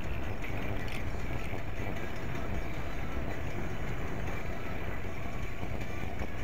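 Steady wind rush on the microphone and road rumble from a bicycle-mounted action camera while riding at a constant pace.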